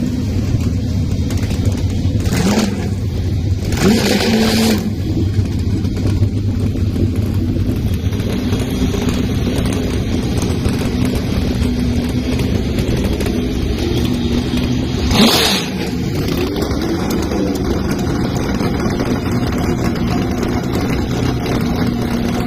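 Motor vehicle engines running: a steady low drone with a few brief louder surges.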